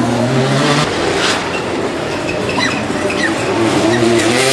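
Rally car engine running hard over road and tyre noise; the engine note holds steady, breaks off about a second in, and climbs again near the end.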